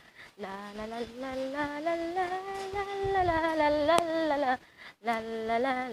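A woman humming wordlessly: one long note that slowly rises and falls over about four seconds, then a shorter note near the end. A single faint click comes about four seconds in.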